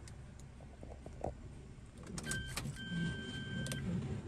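Inside a Suzuki car's cabin: a few clicks and the car's electronic warning beep, one short beep and then one about a second long, over a low rumble that grows louder partway through.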